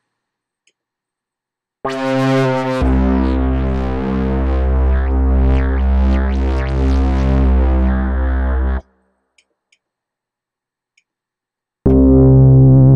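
Synth bass patches from the Platinum Bounce expansion for Native Instruments Maschine, played from a keyboard. About two seconds in, a held synth note starts, a deep sub-bass layer joins a second later, and both cut off together about nine seconds in. After a pause of about three seconds, another bass patch starts near the end, its pitch wobbling.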